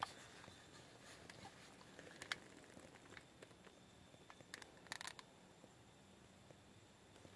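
Near silence, broken by a few faint clicks and handling noises from a handheld infrared thermometer: a sharp click about two seconds in and a short cluster of clicks around the five-second mark.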